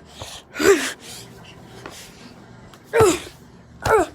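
A person's short, breathy gasping cries without words: three of them, each falling in pitch, one about half a second in and two close together near the end.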